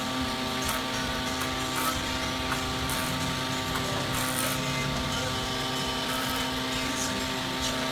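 Woodworking jointer running with a steady hum while a wide board is fed on edge across its cutterhead, with brief high hissing bursts now and then.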